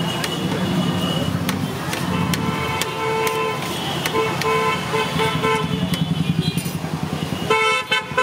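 Street traffic: engines running steadily with vehicle horns honking repeatedly, the honks coming thicker near the end.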